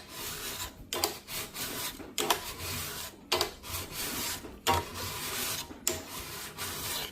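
A bar dresser rasps along the steel rails of a chainsaw guide bar in about six long strokes, roughly one a second, each a steady scrape with a short break between. It is dressing off the raised edge that wear has left on the bar rails.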